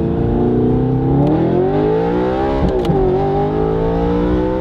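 Straight-piped, APR-tuned Audi R8 V8 heard from inside the cabin under acceleration. The engine rises steadily through the revs and drops sharply at a gear change a little over halfway in, then climbs again in the next gear.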